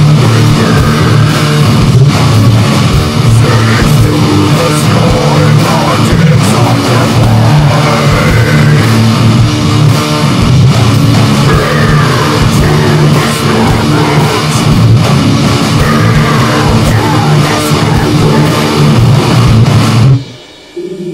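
Loud heavy rock music with guitar and drums, which cuts off suddenly near the end, leaving a quieter sustained tone.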